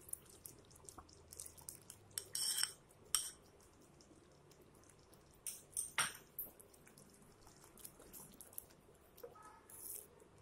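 Cream poured into thick curry in a kadhai, with a few short, soft wet splats. A spatula scrapes the pan near the end.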